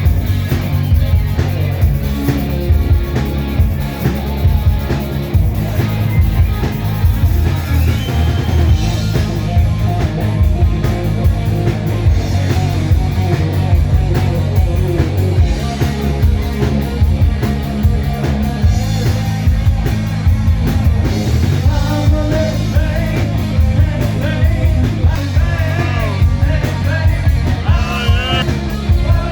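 A rock band playing live and loud, with heavy drums and bass and a singer.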